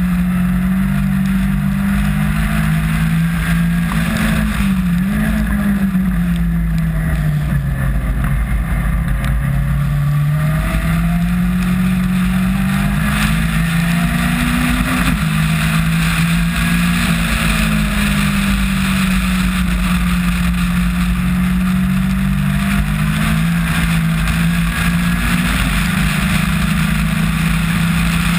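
Caterham R300 Superlight's four-cylinder engine at race speed, heard from on board, its revs climbing and dropping again and again through gear changes and corners. A steady hiss of wind and spray from the soaking wet track runs underneath.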